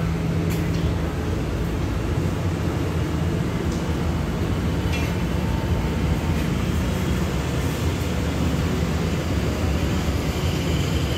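Diesel-hauled passenger train pulling slowly out of the station: a steady low engine drone with the rumble of the coaches rolling past, and a few faint clicks from the wheels.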